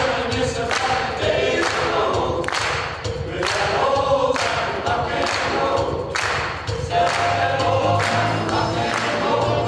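Choir singing a cappella, with sharp hissing accents on a steady beat; from about seven seconds in the voices hold a chord over a low bass note.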